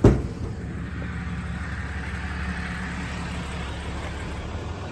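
A single sharp thump at the start, then the truck's diesel engine idling steadily.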